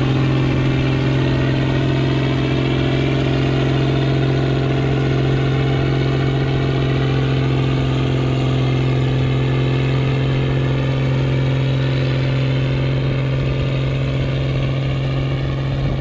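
A vehicle engine running steadily at an even speed, its loud hum holding the same pitch and level throughout.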